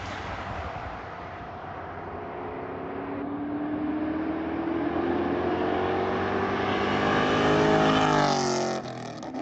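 Ford Mustang accelerating hard toward and past, its engine note climbing in pitch and growing louder, then dropping in pitch as the car goes by about eight seconds in, before the sound cuts off abruptly.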